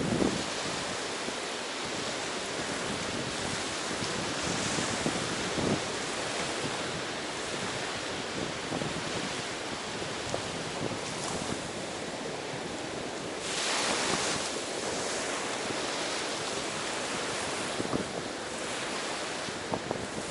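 Ocean surf: a steady rush of waves on the shore, with one louder wave washing in about fourteen seconds in. Some wind buffets the microphone.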